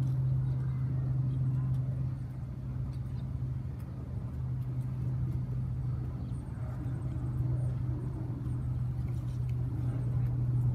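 A steady low mechanical hum from a running motor or engine, holding one pitch throughout over a low rumbling background.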